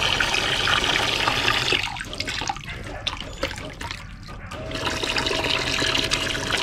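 Water splashing and gushing into a cooler of water from the return line of a 12-volt bilge pump on test, a steady flow. The splashing turns muffled and quieter for about three seconds in the middle, and a faint steady hum comes in for the last two seconds.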